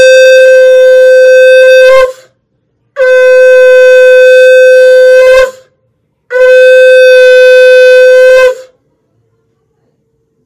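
Conch shell (shankha) blown in three long blasts of one steady held note, each about two seconds, with short breaks between them: the customary three conch blasts that open a Hindu puja.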